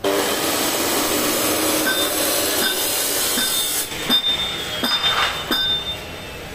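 Metalworking noise on a steel truck body: a steady harsh noise that starts abruptly and runs about four seconds, then three or four sharp metal clanks that ring on, one ring slowly falling in pitch.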